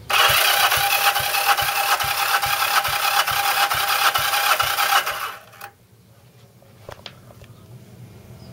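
Starter motor cranking a 1974 Kawasaki KZ400 twin with both spark plugs out and the throttle open: a steady whir with an even pulse about three times a second as the pistons come up, stopping suddenly after about five seconds, then a click. The compression test reads only about 50 psi where it should be near 100, which the owner puts down to a head gasket leaking between the cylinders.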